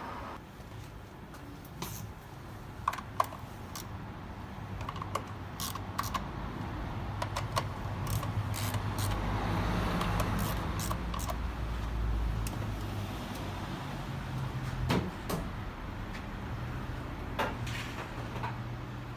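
Car engine running steadily with a low hum that swells louder midway, with scattered clicks and knocks over it.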